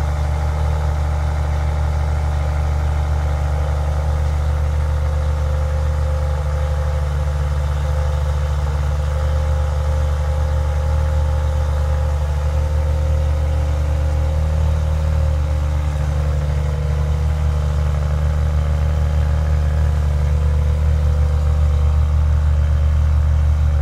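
Maserati Ghibli SQ4's twin-turbo V6 idling steadily at its exhaust tips, still warming up after a cold start.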